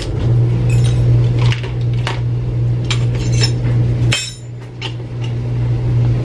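Kitchen utensils and straws clinking and knocking as they are handled and dropped into a drawer organizer, several separate clinks. A steady low hum runs underneath, dropping off for a couple of seconds past the middle.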